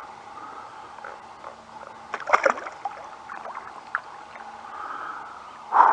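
Knocks and clatter of fishing gear being handled in a kayak: a quick cluster of sharp knocks about two seconds in, a few lighter clicks after, and a louder brief rushing burst near the end.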